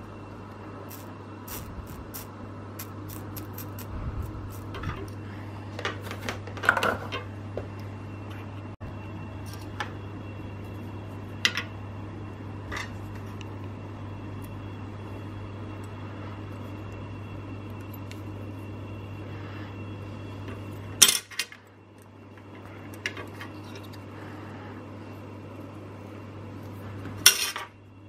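Scattered small metallic clicks and taps of steel tweezers and small SMD connector parts handled on a work mat and a 3D-printed soldering template, over a steady low hum. Two sharper, louder clicks come about three quarters of the way through and again near the end.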